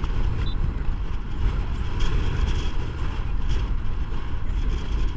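Strong wind buffeting the microphone, a continuous low rumble that rises and falls with the gusts.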